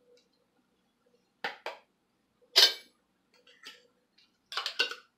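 An open tuna tin being emptied into a glass bowl: scattered clinks and taps of metal against glass, the sharpest about halfway through and a quick cluster near the end.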